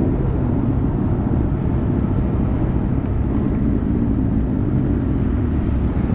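Several motorcycle engines idling steadily together at a standstill, with no revving.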